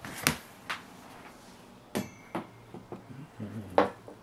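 Kitten scratching and digging in cat litter in a small tray: about five sharp scrapes and clicks, one with a brief ringing ping about two seconds in.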